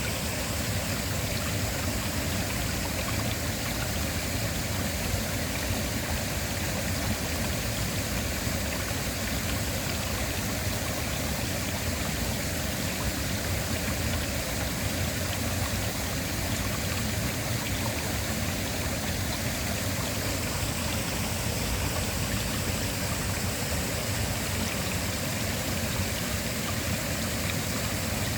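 Waterfall: a steady, unbroken rush of falling water, even in level throughout.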